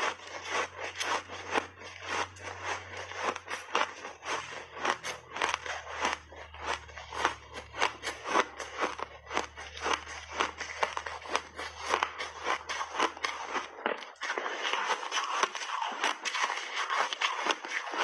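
Refrozen mixed-berry block ice being bitten and chewed, a rapid, irregular run of sharp crunches and crackles. A low steady hum runs underneath until about three-quarters of the way through.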